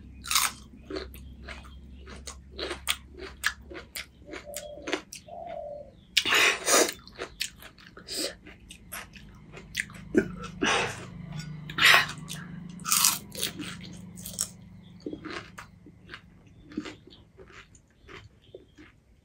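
A person chewing and crunching crisp pani puri (golgappa) shells close to the microphone, an irregular run of crunches with a few louder ones.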